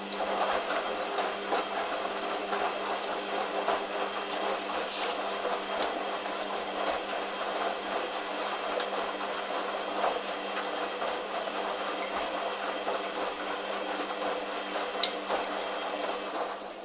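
Hoover washing machine's motor turning the drum during a rinse: a steady mechanical whirr with water swishing and a few light knocks. It starts suddenly and stops just before the end, over a constant low hum.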